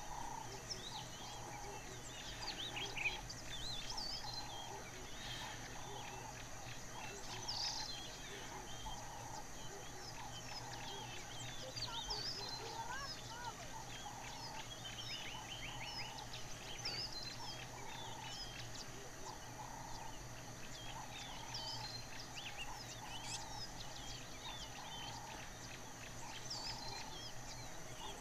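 Bushland birdsong: many birds chirping and trilling at once. A lower call repeats over and over about every second and a half, over a steady high-pitched hum.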